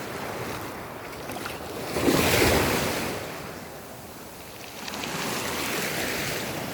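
Black Sea waves washing and surging. One surge is loudest about two seconds in, and another swells near the end. Wind is on the microphone.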